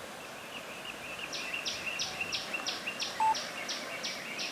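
Rhythmic high-pitched chirping from a small animal, bird or insect, starting about a second in and repeating about four times a second over a steady thin chirring and faint outdoor hiss, with one brief louder peep about three seconds in. The distant diesel locomotive is not clearly heard.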